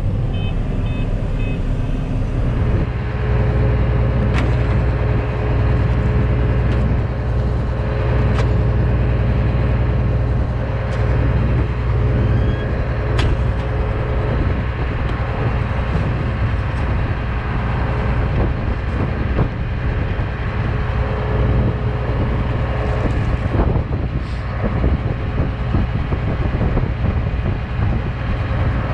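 John Deere 9510 combine running steadily, a deep engine drone with a steady whine over it. A short run of beeps sounds at the start, and the drone grows fuller about two seconds in.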